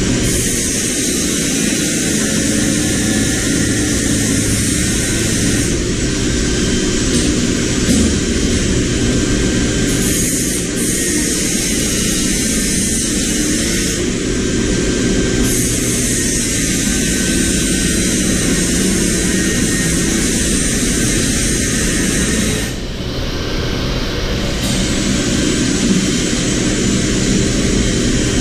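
A motor or machine running steadily and loudly with a continuous whirring noise, briefly losing its hiss about 23 seconds in.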